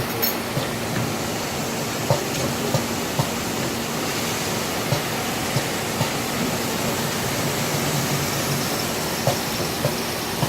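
CNC centerless grinder running: a steady rushing machine noise with a faint hum underneath, and sharp clicks or knocks now and then.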